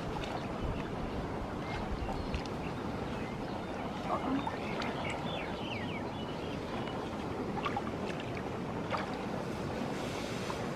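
Wind buffeting the microphone, a steady rumbling hiss, with scattered light clicks and rustles as the grass is pushed about. A few short high chirps about five seconds in.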